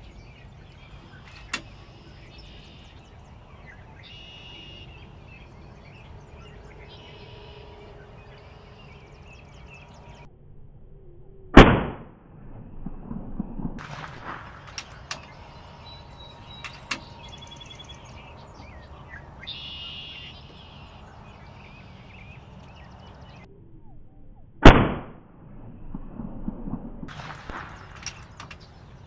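Two shots from a PCP air rifle, each a single sharp crack, about 13 seconds apart, with scattered small clicks between them. Birds chirp faintly in the background.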